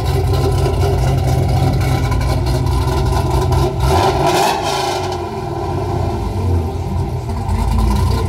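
Fifth-generation Chevrolet Camaro's engine running, a loud, deep exhaust rumble.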